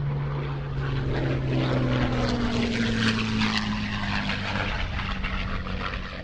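Supermarine Spitfire Mk VC's Rolls-Royce Merlin V12 engine and propeller in a flypast: a steady engine note that swells in the first second, then slowly drops in pitch and fades a little as the aircraft passes.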